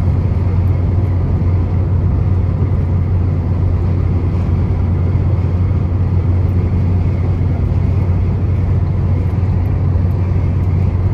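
Cabin noise inside a Chevrolet Onix Activ cruising at about 116 km/h: a steady mix of engine, tyre and wind noise with a deep drone.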